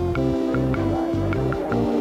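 Background music with a steady beat: held chords over a stepping bass line, with light ticking percussion about three times a second.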